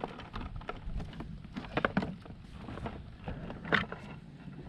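Irregular small knocks and clicks as a crab trap with a crab in it is hauled up and handled, with a louder knock a little under four seconds in.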